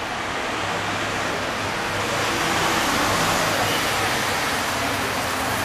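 Steady rushing outdoor noise that swells to its loudest in the middle and eases off again, with a faint low hum underneath.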